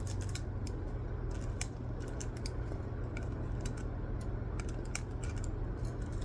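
Scattered light clicks and plastic crinkles as small hair clips are taken from their plastic blister card and handled.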